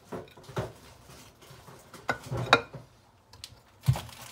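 Raw potato wedges being set into a cooking pan by hand, with about five short knocks and clatters of potato, bowl and pan; the loudest comes about two and a half seconds in, with another near the end.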